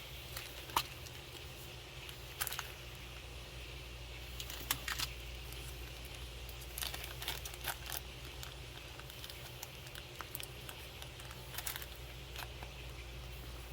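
Small scattered clicks and light rattles of tools and small parts being handled while an RC crawler's drivetrain is worked on, over a steady low hum.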